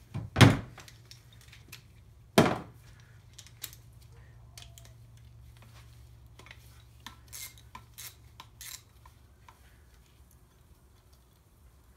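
Metal hand tools clinking against an engine block: a 13 mm socket and wrench working the bolts on a diesel camshaft. Two sharp metallic clanks come in the first few seconds, followed by lighter, irregular clicks and taps.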